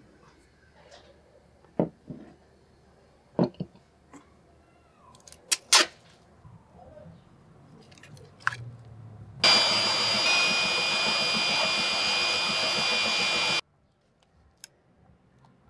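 Brown packing tape pulled off the roll in one long steady screech of about four seconds, starting and stopping abruptly. Before it come a few sharp clicks and knocks of the metal vise being handled.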